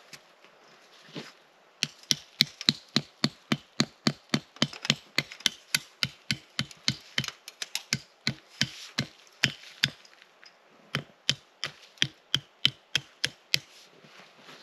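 A fast, even run of sharp knocks, about three a second, from repeated blows of a hand tool; it stops briefly, then starts again for a few more seconds.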